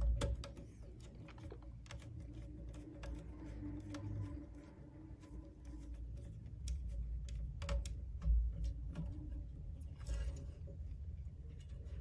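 Small clicks and taps of a screwdriver and wire being worked into a circuit board's screw terminal block, with rustling of wires and a few low bumps of hands against the keypad's metal housing between about six and ten seconds in.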